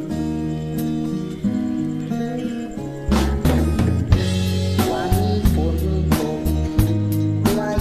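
Instrumental music from a karaoke backing track, with no singing: guitar over sustained chords, then drums and bass come in with a steady beat about three seconds in.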